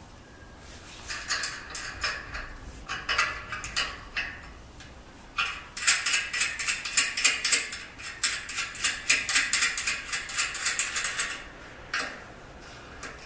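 Metal clicking and rattling from a threaded levelling foot being screwed onto a machine stand's leg: a few short bursts of clicks, then several seconds of fast, continuous clicking, with one more click near the end.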